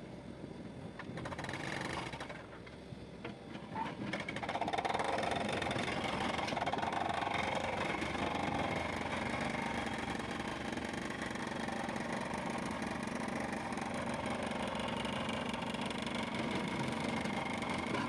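Backhoe loaders' diesel engines running under load while their backhoe arms dig. The engine noise grows louder about four seconds in and then holds steady.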